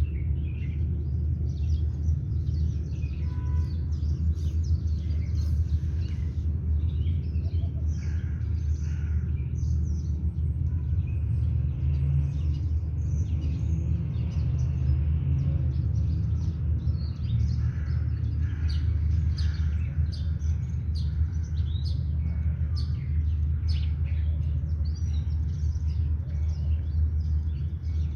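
Small birds chirping and twittering on and off over a steady low rumble of outdoor background noise.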